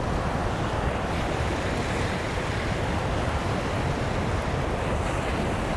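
Ocean surf washing and breaking onto a sandy beach in a steady rush, with wind buffeting the microphone.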